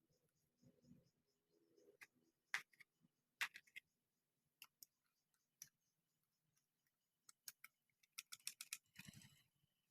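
Faint, scattered clicks and taps of parts being handled during a starter motor repair, with a quick run of clicks near the end and a short rustle just after it.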